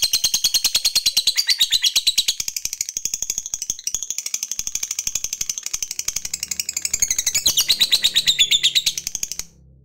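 Lovebird giving a long 'ngekek', the rapid chattering trill prized by Indonesian fanciers: fast shrill notes, about ten a second, run on without a break and stop suddenly near the end.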